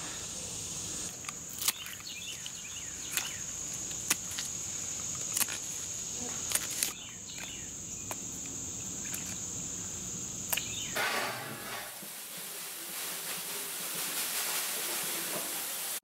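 Insects droning steadily at one high pitch in a summer garden, with a few scattered sharp clicks. The drone stops about eleven seconds in, leaving an even hiss.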